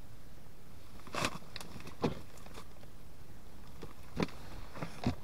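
A handful of short, scattered clicks and knocks from small objects being handled on the ice, over a steady low rumble.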